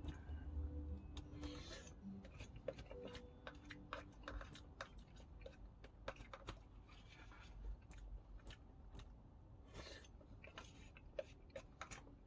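A person eating with a metal spoon from a bowl: irregular light clicks and scrapes of the spoon against the bowl, with soft chewing between them.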